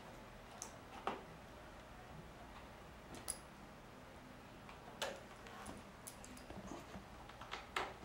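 Small screwdriver backing Phillips screws out of a laptop screen's plastic bezel: a handful of faint, scattered clicks and ticks.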